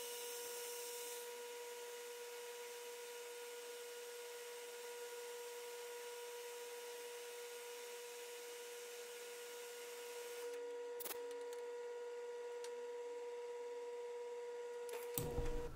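Metal lathe running with a steady hum while its tool turns the outside diameter of a small brass crosshead held in a collet, with a light cutting hiss. The hiss fades about ten seconds in, leaving the spindle hum, with a single click shortly after.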